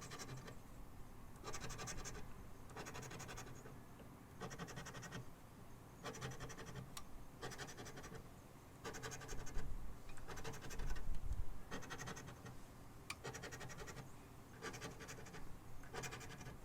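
Scratching the coating off a scratch-off lottery ticket, in about a dozen short spurts of strokes with brief pauses between.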